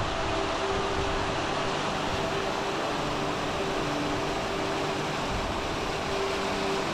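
Steady rushing of a mountain stream cascading over rock slabs, an even hiss of water, with faint sustained music notes underneath.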